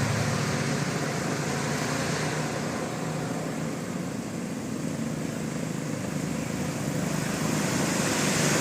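Steady roadside traffic noise from passing vehicles, engines and tyres, easing a little around the middle and building again near the end.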